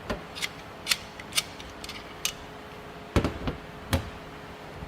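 Channellock 460 tongue-and-groove pliers being worked by hand: a string of sharp, separate metal clicks, with a couple of heavier clacks about three and four seconds in.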